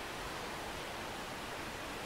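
Steady rush of a shallow rainforest stream flowing over its bed, an even hiss with no breaks.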